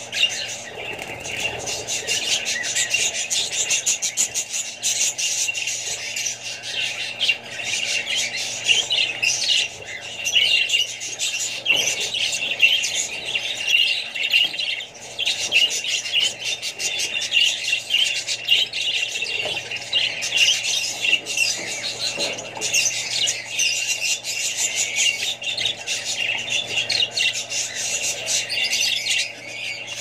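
Budgerigars chattering and warbling without a break: a dense stream of short chirps and squawks, over a faint steady low hum.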